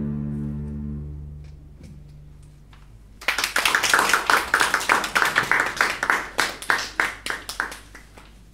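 A double bass ensemble's final bowed chord rings on and fades away, then the audience applauds from about three seconds in, the clapping thinning out near the end.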